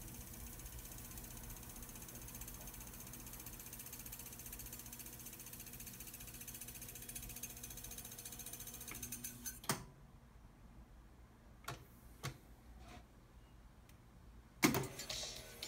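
Pioneer RT-909 reel-to-reel tape deck fast-winding its tape with a steady whirr, which stops with a click nearly ten seconds in. A few quieter transport clicks follow a second or so apart, then a loud clunk near the end.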